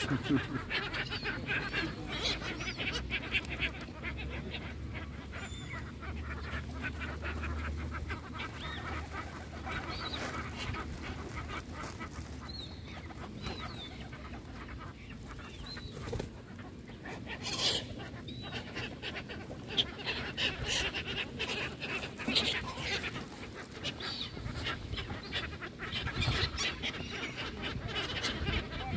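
A crowd of gulls and ducks calling continuously over food thrown onto the water, with splashing and wing flaps as they jostle for it.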